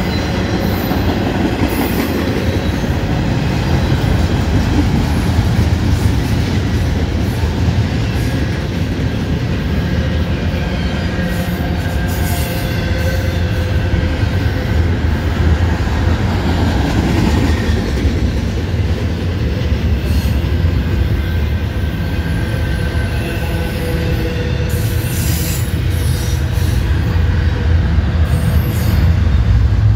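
Double-stack container freight train rolling past: a steady heavy rumble of steel wheels on the rails, with brief high wheel squeals every several seconds.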